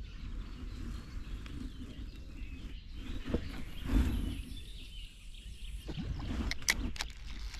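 Faint bird calls over a low rumbling background, with a dull knock about four seconds in and a few sharp clicks shortly before the end.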